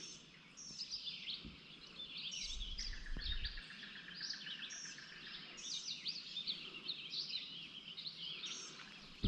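Several songbirds chirping and singing throughout, with a fast, even trill from one of them for a couple of seconds about a third of the way in.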